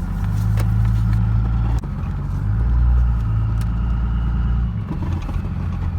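Cummins 24-valve diesel in a 1999 Dodge Ram 2500 pulling at full throttle through a 4-inch straight-pipe exhaust, heard inside the cab as a deep drone. It breaks off briefly about two seconds in, then eases to a lower level near the five-second mark.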